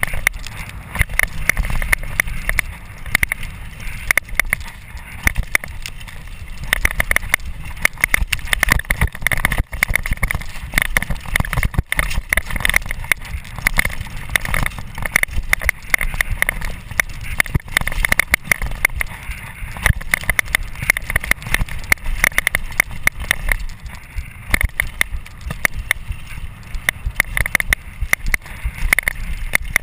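Downhill mountain bike ridden fast over a rocky dirt trail: constant rattling and clattering from the bike over the bumps, with tyre noise and heavy wind rumble on the chest-mounted camera's microphone.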